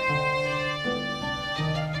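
Instrumental background music: a melody of held notes, each changing in pitch about every half second.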